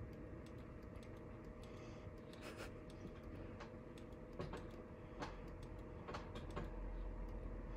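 Faint, irregular clicks and light taps from handling plastic LED traffic-control batons and pressing their switches, over quiet room tone.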